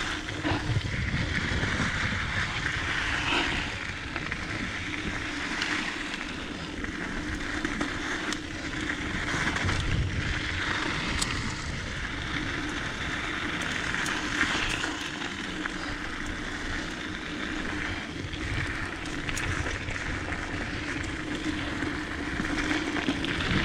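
Diamondback Mission 2 mountain bike running downhill on a dirt trail: steady wind noise on the microphone over tyre rumble, with scattered rattles and knocks as the bike goes over bumps.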